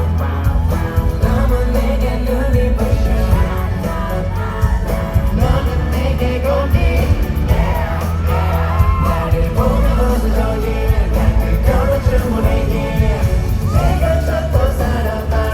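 Live K-pop song performed by two male singers over a loud backing track with a heavy bass beat, played through a concert sound system, with fans yelling along.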